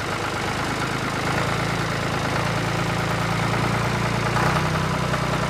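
Tractor engine idling with an even chugging pulse, growing a little louder about a second in and shifting slightly in pitch near the end.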